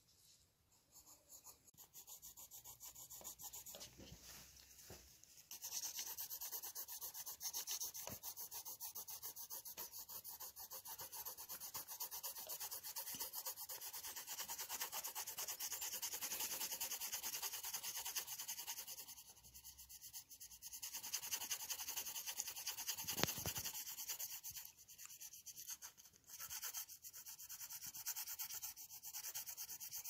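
Quick back-and-forth rubbing of a pencil or pastel on drawing paper, shading a coloured area. It is soft for the first few seconds, then steady from about five seconds in, with a couple of brief pauses.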